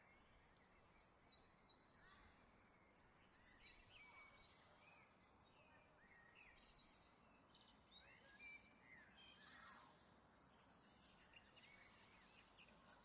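Faint bird chirps and short calls over a low, steady hiss, busiest in the middle.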